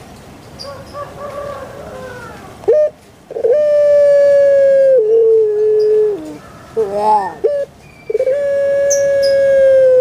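Puter pelung, a long-calling barbary dove (Streptopelia risoria), cooing: soft low coos at first, then two long drawn-out coos of about two seconds each that step down in pitch near their ends, with short broken notes between them.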